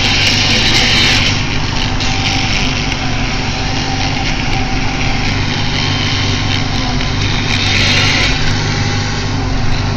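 SAME Silver 90 tractor's diesel engine running steadily, heard from inside the cab while it pushes snow with a front plough blade. A hissing rush rises over the engine during the first second and again around eight seconds in.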